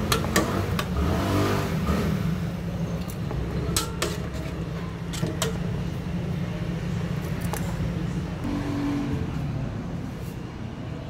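A metal spoon clinking against a glass bowl in a steel sink, several sharp clicks, most of them in the first half, over a steady low hum.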